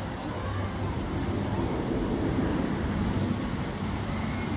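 Amusement ride machinery running with a steady low hum, mixed with wind noise.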